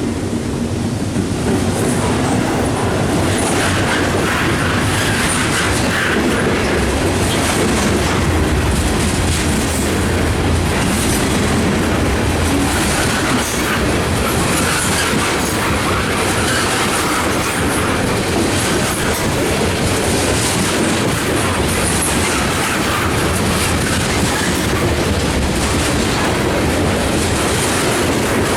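A train rolling past at close range, its wheels clacking steadily over the rail joints with a faint squeal of wheels on rail.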